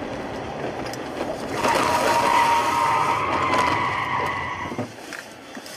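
Car tyres squealing in a skid on the highway for about three seconds, a wavering high squeal over road noise, starting about a second and a half in and cutting off just before five seconds in.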